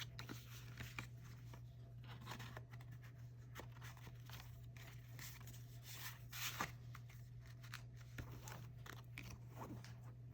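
Faint rustling and crinkling of paper and plastic packaging being handled, with scattered small clicks and taps over a steady low hum.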